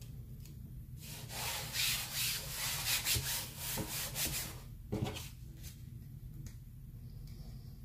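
Brisk rubbing strokes against a hard surface, about three a second for some three seconds, then a single knock.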